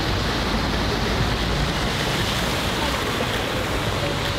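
Steady rushing noise of splashing fountain water over a low rumble.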